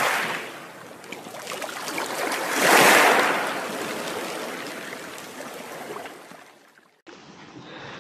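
Underwater rushing and bubbling sound effect of a logo intro: it swells to a peak about three seconds in, fades away and cuts off abruptly near the end. A quieter outdoor ambience from the boat on calm water follows in the last second.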